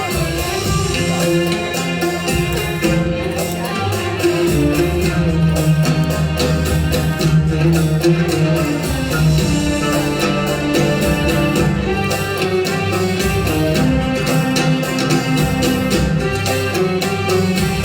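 Live oud music: a quick stream of plucked notes over a fuller accompaniment.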